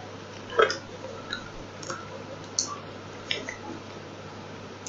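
Quiet room tone with a steady low hum, broken by a handful of faint, short clicks and taps, the loudest about half a second in.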